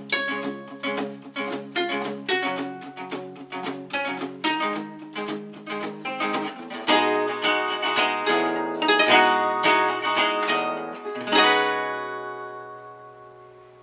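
Archtop guitar and ukulele playing an instrumental passage together, picked and strummed, ending on a final chord about eleven seconds in that rings out and slowly fades.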